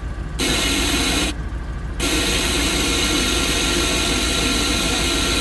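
Original AM/FM radio of a 1973 Chevrolet Corvette hissing loud static, cutting out twice in the first two seconds and then hissing steadily: the radio only partly works. Underneath runs the low steady hum of the idling V8.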